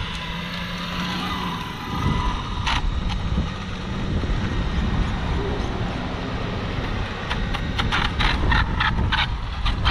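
Arrma Limitless 8S RC car's brushless electric motor and gears whining thinly as it drives slowly close by, over a steady low noise. There is a run of short, sharp clicks near the end.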